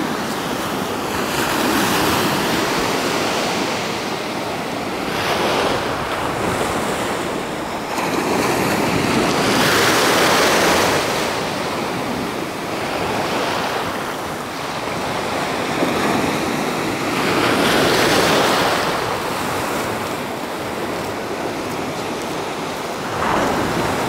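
Black Sea surf breaking and washing in, swelling and ebbing every four to five seconds, with wind buffeting the microphone.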